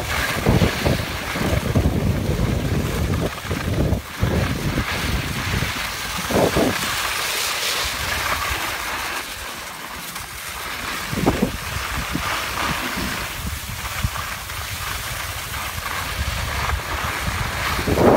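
Wind buffeting the microphone with a steady low rumble, over the hiss and scrape of skis sliding on snow.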